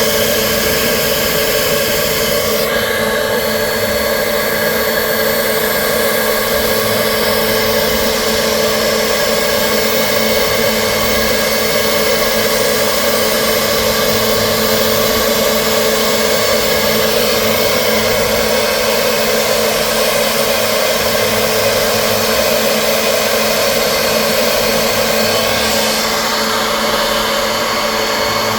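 CNC machine running steadily: a loud, continuous machine whine and hiss with a steady hum underneath.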